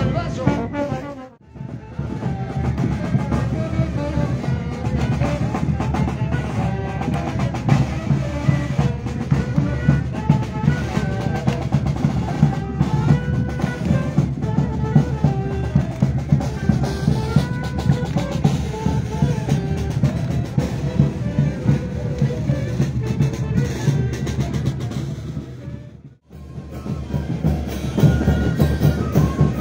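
Street brass band playing a march: trumpets, tuba and saxophone over a steady bass drum and clashing cymbals. The music drops out briefly twice, about a second and a half in and again near the end.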